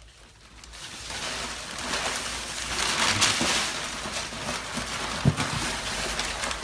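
Paper rustling and crinkling, a gift being unwrapped, with a few small knocks.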